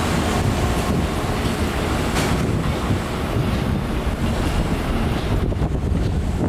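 Wind buffeting the microphone as a loud, uneven low rumble, over a steady noise haze with a faint hum from site machinery. There is a brief sharp knock about two seconds in.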